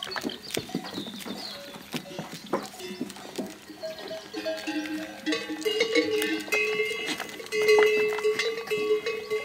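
A herd of goats with their bells clanking at several pitches, mixed with sharp knocks from two horned bucks butting heads. The bell ringing grows denser in the second half.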